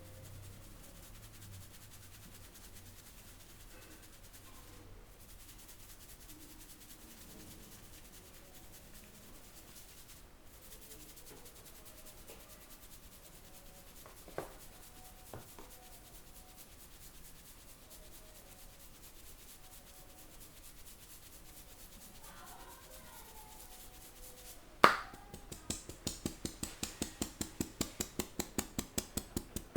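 Barber's hands rubbing during a head massage, soft and steady, with a light click about halfway. Near the end comes one sharp crack, then rapid rhythmic hand strikes, about five a second.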